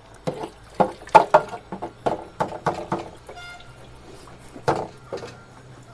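A string of irregular knocks and clunks, about a dozen in five seconds, from the emptied fuel tank and the petrol container being handled and set down.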